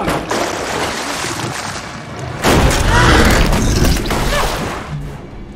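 Film sound effects of an alligator attack in floodwater: water splashing from the start, then a heavy boom-like crash of water about two and a half seconds in as the alligator lunges, easing off toward the end.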